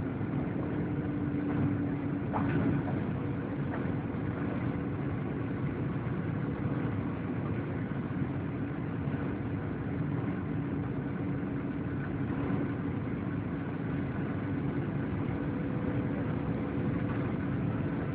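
Steady cabin noise inside a Boeing 737-800 on its landing approach: the drone of its CFM56 turbofan engines and rushing air, with a steady hum running through it.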